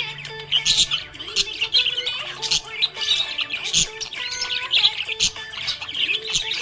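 Budgie (budgerigar) chirping and chattering in a rapid, unbroken stream of short high chirps, warbles and clicks.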